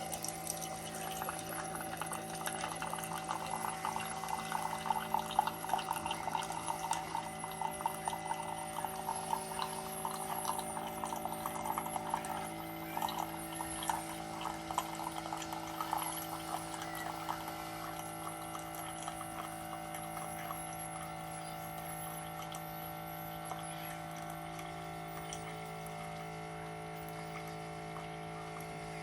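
Mini Keurig single-serve coffee maker brewing a K-cup: a steady hum with gurgling and coffee trickling into the cup. The gurgling eases off after about 17 seconds, leaving the hum.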